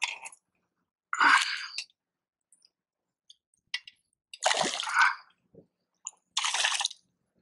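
A small northern pike thrashing at the surface on the line beside a kayak, throwing three short splashes: one about a second in, one at about four and a half seconds, and one near the end.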